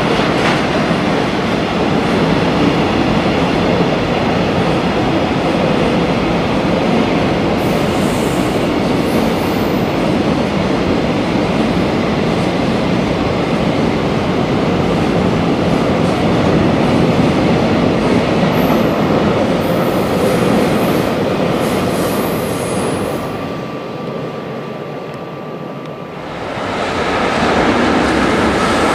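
Freight train passing, with steady wheel-on-rail noise from its wagons. The noise dips about twenty-four seconds in, then rises again near the end with a faint steady whine as another train comes by.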